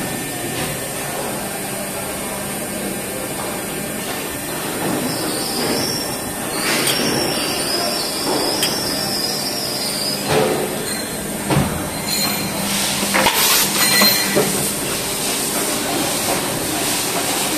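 Plastic injection moulding machine running through a cycle on a food-container mould: a steady mechanical hum with a high squeal for several seconds in the middle. Then a series of knocks and clatter near the end as the mould opens.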